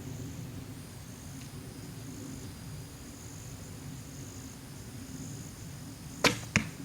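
A bow shot: the sharp snap of the string releasing, then the arrow striking the target a fraction of a second later, near the end. The shot was made without drawing the bow all the way back.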